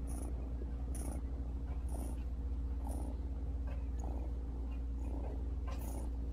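Ragdoll cat purring steadily and close up as it is petted, a low rapid rumble with a soft breath sound about once a second.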